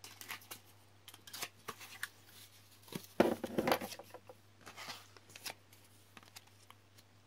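Sheet of clear self-adhesive plastic film crackling as it is handled and laid onto a card, a run of irregular sharp crackles that is loudest about three to four seconds in.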